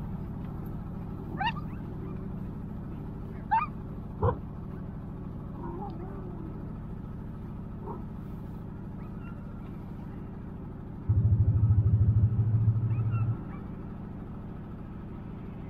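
Utility vehicle engine running with a steady low hum, with a louder low rumble for about two seconds around eleven seconds in. Harnessed sled dogs whine and yelp a few times in the first five seconds.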